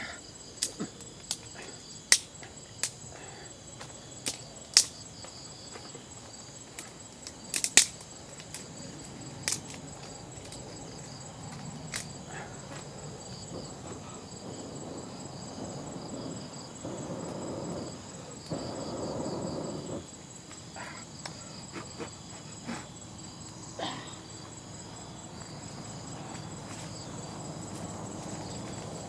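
Campfire crackling with sharp, scattered pops, most of them in the first ten seconds, over a steady chorus of crickets. Around the middle come two rushing bursts of breath blowing on the fire to fan it.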